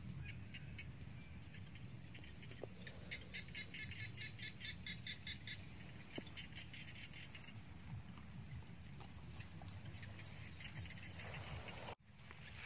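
Faint outdoor ambience of small birds calling: short high whistled notes and quick runs of repeated chirps, over a steady low rumble.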